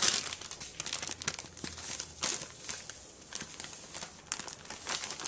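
A bag of cornmeal crinkling and rustling in irregular bursts as it is handled and poured into the flour. The crinkling is loudest right at the start and comes more sparsely after that.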